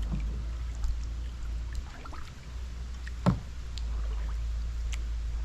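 Small boat moving through water: a low steady rumble with faint scattered splashes and ticks, and one sharp knock a little over three seconds in.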